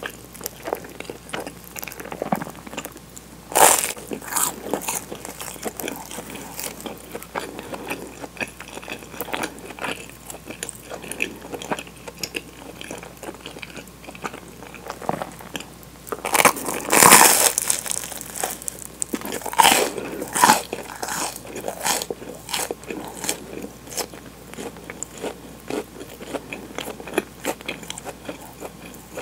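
Close-miked biting into and chewing a crisp toasted sandwich of white bread with melted mozzarella inside. Crunchy bites are loudest about three and a half seconds in and again around seventeen to twenty seconds in, with crackly chewing between them.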